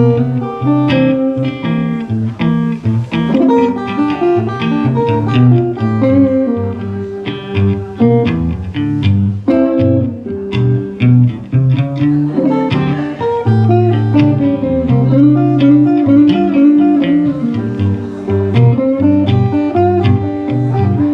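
Blues guitar instrumental break: plucked guitar notes played continuously with no singing.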